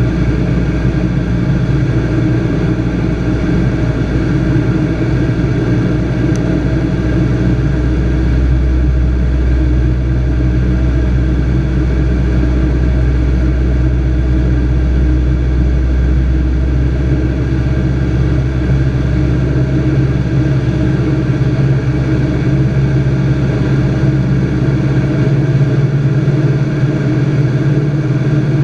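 Piston engine and propeller of a Robin DR200 light aircraft running steadily. Past the middle the deepest part of the engine note fades and a higher hum grows stronger.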